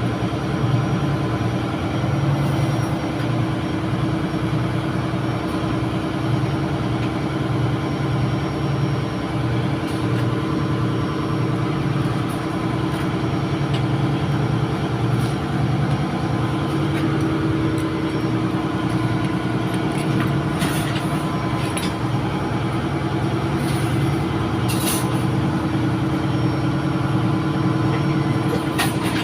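Steady drone of a ship's engine-room machinery running: a constant hum with a pulsing low note, and a few faint clicks in the second half.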